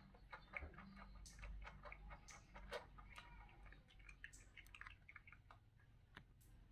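A cat eating dry kibble from a plastic bowl: faint, irregular crunches and clicks as it chews.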